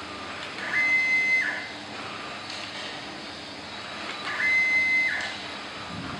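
Stepper-motor-driven auger of a semi-automatic powder filling machine running two fill cycles about three seconds apart, each a steady high whine lasting under a second that slides up at the start and down at the stop.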